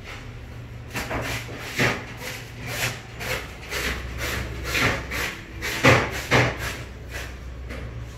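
DTG printer running its head-cleaning cycle: a string of irregular scraping and clicking strokes over a steady low hum, the loudest about two seconds in and again around six seconds in.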